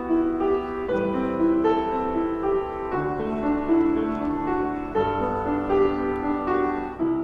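Piano music with sustained notes and a new chord struck every second or two.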